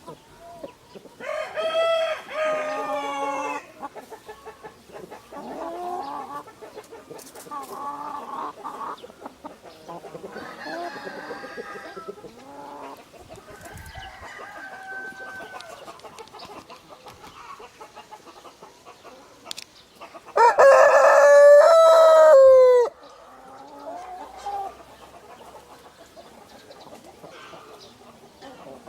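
Roosters crowing: one crow about a second in, and a much louder crow of about two and a half seconds about two-thirds of the way through, with chickens clucking and calling in between.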